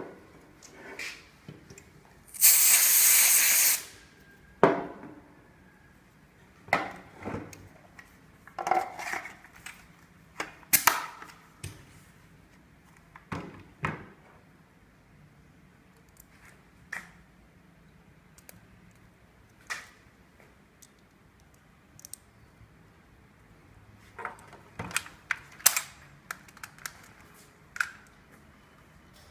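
Gas airsoft shotgun and its shells being handled: a loud hiss of gas lasting about a second and a half near the start, then scattered sharp clicks and clacks of shells and mechanism, with a quick cluster of clicks near the end.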